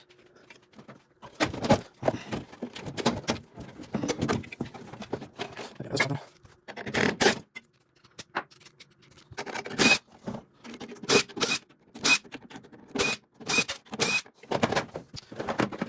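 Irregular clanks, clicks and rattles of tools and metal parts as a stuck internal piece of a tankless gas water heater is worked loose, with a few short metallic pings in the second half.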